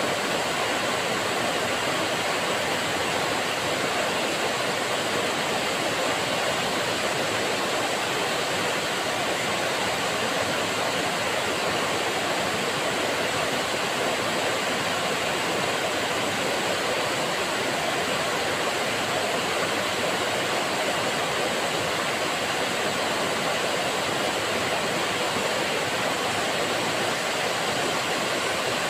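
Waterfall spilling down a rock face into a pool: a steady, unbroken rush of falling water.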